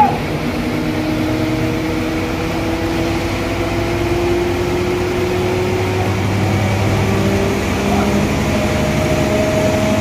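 Sawmill engine running steadily, a constant mechanical hum whose pitch drifts slowly up and down.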